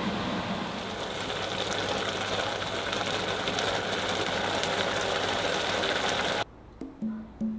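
Food sizzling in a pan: a steady crackling hiss over a low hum, which cuts off about six and a half seconds in.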